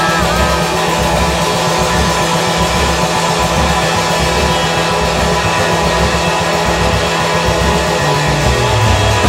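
Live 1960s British blues-rock band playing a loud, dense passage of electric guitar over bass and drums; the bass line steps down near the end.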